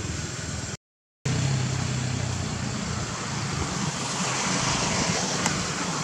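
Steady low motor hum, like a vehicle engine running, under a broad background hiss. The sound cuts out completely for about half a second about a second in, and the hiss grows louder in the second half.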